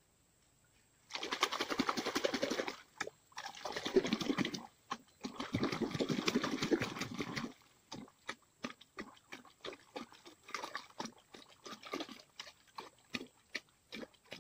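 Water splashing and sloshing in three bursts of a second or two each, followed by scattered drips and small clicks.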